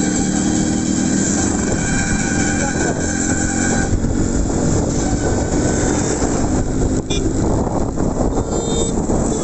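Yamaha RX100's two-stroke single-cylinder engine running on the move, mixed with wind and road noise. Its note is steady at first and changes about four seconds in. A couple of brief high beeps come near the end.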